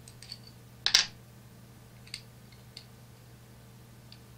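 Small metal jaw-harp parts and a hand tool clicking and clinking against each other and the wooden work board: one sharp clack about a second in, then a few lighter ticks.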